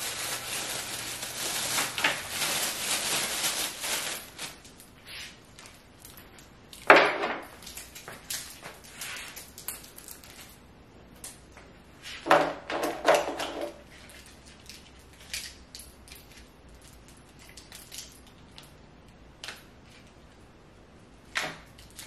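Plastic packaging rustling and crinkling for about four seconds, then scattered knocks and clunks of items being handled and set down on a wooden table: one sharp knock about seven seconds in, a short cluster around twelve to thirteen seconds, and light clicks in between.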